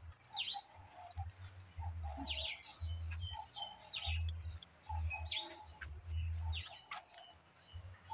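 Birds chirping outdoors: a faint series of short repeated calls about once a second, over an intermittent low rumble.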